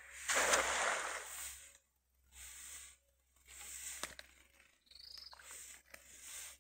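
A cast net splashing down onto a river, a noisy rush starting about half a second in and lasting just over a second, followed by a few short, softer rustles.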